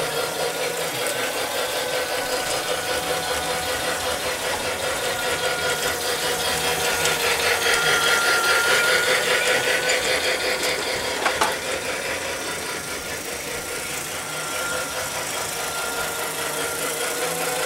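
Small electric motor of a battery-powered toy train running steadily on its plastic track, with a whir and a light rattle of the wheels and cars. There is a single sharp click about eleven seconds in.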